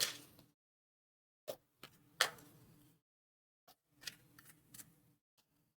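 Fortune-telling cards being handled and laid down on a table: a series of faint, short taps and clicks, loosely spaced, with quiet between.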